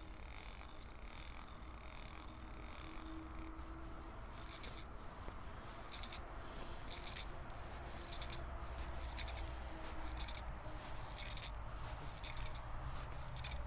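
Scratchy rubbing and clicking close to the microphone, in short repeated runs from about four seconds in, over a low steady rumble.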